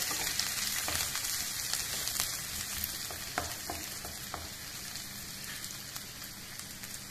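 Sliced onions sizzling in a little oil in a nonstick kadhai as they are sautéed until soft. A wooden spatula stirs them, with a few light scrapes and taps on the pan in the first half; the steady sizzle goes on after the stirring stops.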